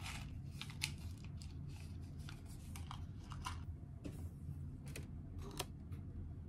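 A small stick packet of kampo herbal granules crinkling and rustling as it is handled, in short irregular bursts, over a low steady room hum.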